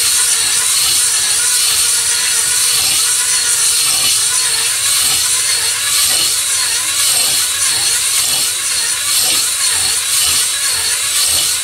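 Electric drill running a cylinder hone in the oil-coated bore of a Kohler KT17 cylinder, a steady whine with the scraping of the hone stones on the bore wall as it is worked up and down to put a cross-hatch in the bore.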